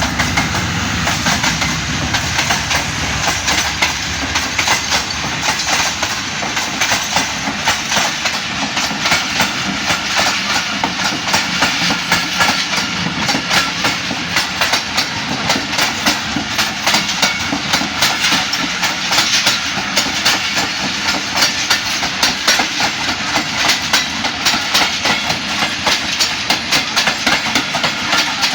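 Passenger train running along the track: a steady loud rumble with a rapid clickety-clack of wheels over rail joints. The clatter comes thicker from about eight seconds in, and a low rumble fades in the first second.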